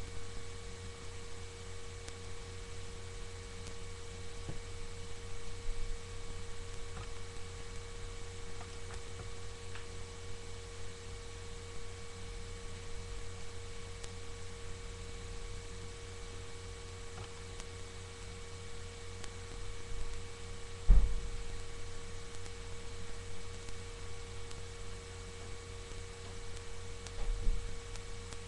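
Steady electrical hum with a thin, even whine over faint hiss, as picked up by a webcam's built-in microphone. A single dull thump cuts through about two-thirds of the way in, and a softer one comes near the end.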